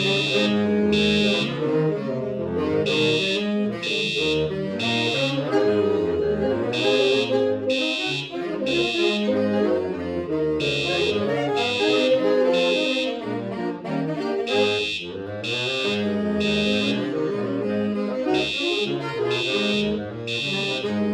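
Saxophone quartet playing, with a fire alarm sounding over it in the temporal-three pattern: three high beeps about a second apart, then a short pause, repeating about every four seconds.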